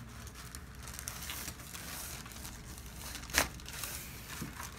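Soft rustling and crinkling as a patient shifts on a chiropractic table, with one sharp joint crack about three and a half seconds in during an adjustment.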